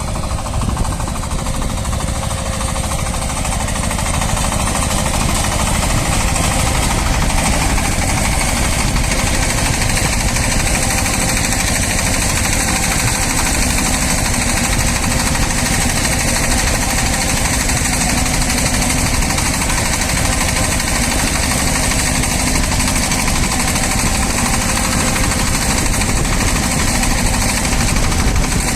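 Shifeng SF-240 mini-tractor's single-cylinder diesel engine running steadily under load while it drives a rear-mounted rotary tiller through garden soil, with a fast low pounding beat.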